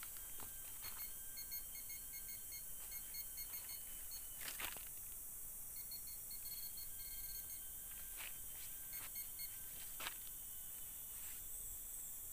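Orange handheld metal-detector pinpointer giving runs of quick, short, high beeps, signalling metal in the soil being dug. Between the runs come crunches and scrapes of hands digging through soil and dry leaves, the loudest about four and ten seconds in.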